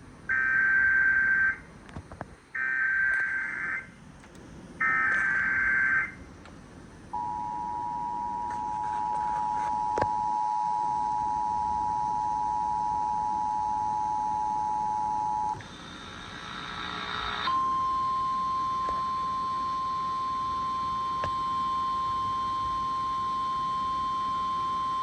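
Emergency Alert System tones received on FM radio: three short buzzy bursts of SAME header data, then the steady two-tone EAS attention signal for about eight seconds. After a brief hiss, a single steady alert tone follows for about nine seconds, the NOAA Weather Radio warning alarm tone.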